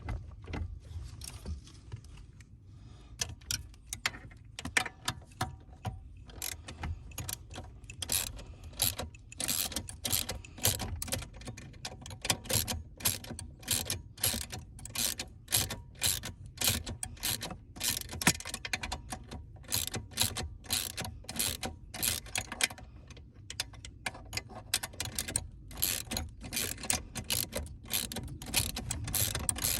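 Hand tools and car parts clicking and clattering during work on a steering wheel: many sharp, irregular clicks, several a second, over a faint low hum.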